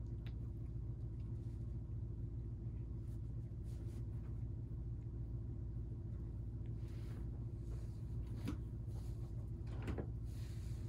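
Steady low electrical hum, with a few faint rustles and light knocks scattered through it; the clearest knocks come near the end.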